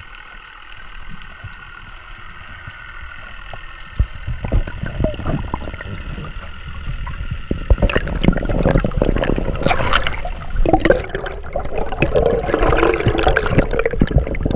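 Underwater water noise from a free-diver swimming up toward the surface: a fairly quiet hiss with faint steady tones at first, then sharp clicks and knocks, and louder rushing and bubbling water over the camera through the second half.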